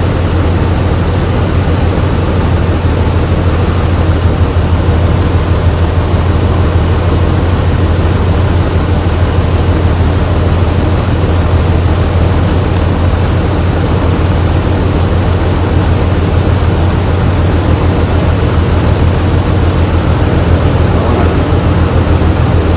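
Jeep Liberty's V6 engine idling steadily, heard loud and close, while it misfires; the mechanic traces the misfire to a dead number 5 ignition coil that gives no spark.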